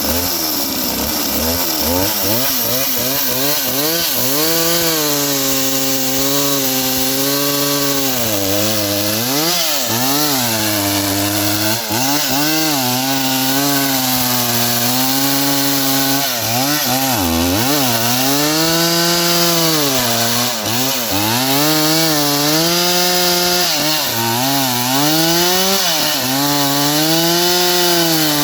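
Stihl 038 AV two-stroke chainsaw running under test, its engine speed rising and dipping over and over.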